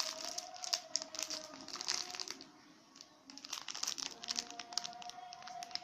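Plastic packaging of a squishy toy crinkling in irregular bursts as it is handled, with a short lull about halfway through.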